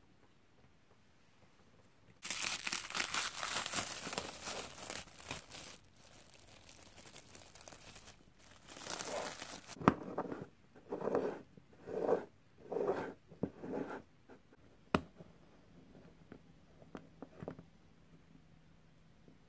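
A stretch of crinkling and rustling, then a knife scraping around the inside rim of a metal springform cake pan in about five short strokes to loosen a chilled cream cake, followed by a single sharp click.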